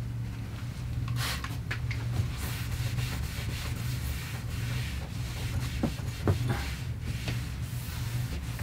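A cloth wiping and rubbing across a cabinet surface in short strokes, with a couple of brief squeaks around the middle, over a steady low hum.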